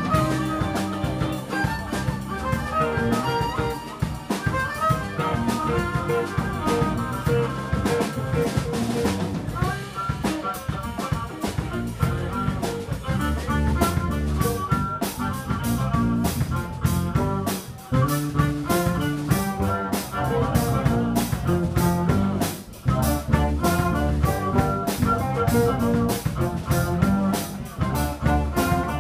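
Live jazz-fusion band playing: violin, electric guitar, keyboards, bass guitar and drum kit. The drumming grows busier about halfway through, with many sharp snare and cymbal strokes.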